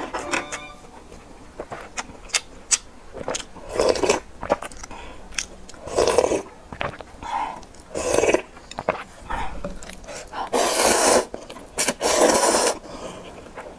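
Close-miked eating of instant noodles in broth: wet chewing and mouth clicks, a sip of broth from a ladle, and long loud slurps of noodles near the end.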